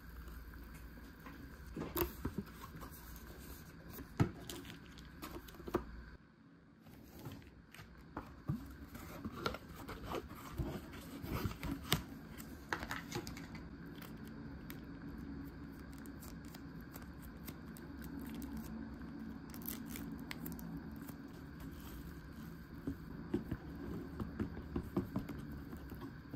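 Plastic ramen packaging being handled close up: crinkling, tearing and scraping with scattered sharp clicks, over a faint steady hum.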